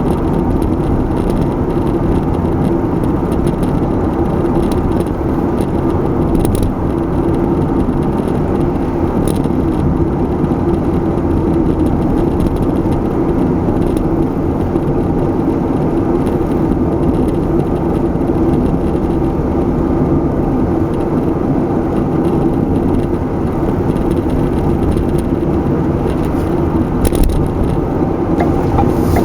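Steady road and engine noise of a car driving at an even speed.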